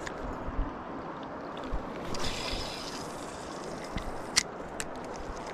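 Steady rush of flowing river water, with a few light clicks and a brief higher hiss about two seconds in.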